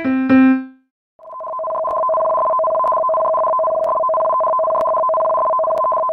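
An electronic alert chime finishes its last notes, and after a brief gap a loud two-tone alarm begins, two steady pitches sounding together for about five and a half seconds. The alarm signals a tsunami warning.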